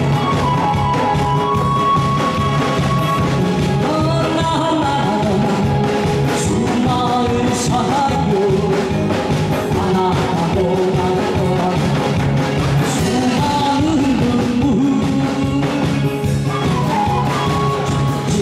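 Song performance: music with a steady beat and singing.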